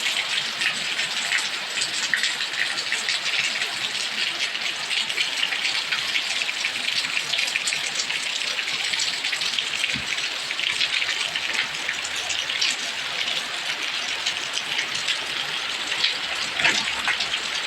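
Heavy rain pouring down: a dense, steady patter of countless drops hitting surfaces, with a few sharper drip impacts near the end.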